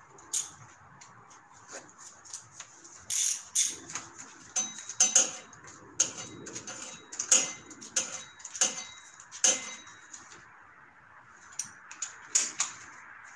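Irregular metallic clicks and clinks from a socket wrench and spark-plug socket on the cylinder head as spark plugs are fitted and tightened.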